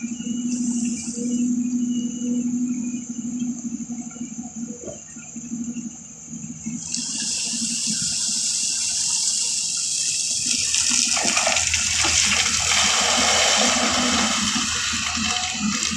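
A steady low hum, then from about seven seconds in a rushing, water-like hiss that swells and holds.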